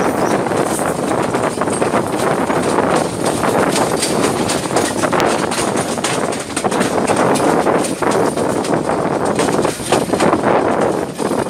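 Passenger train coach running through a station yard, heard from an open window: a steady rumble of wheels on the rails with many quick clicks and clatters as the wheels cross rail joints and points.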